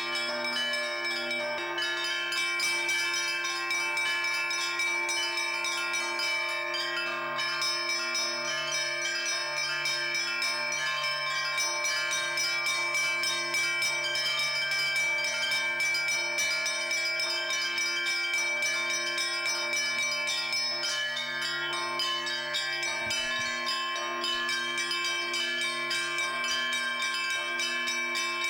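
Church bells of St Sophia Cathedral's bell tower pealing: rapid strikes of small bells ring over lower bells sounding at a slower, even pace, all ringing on together without a break.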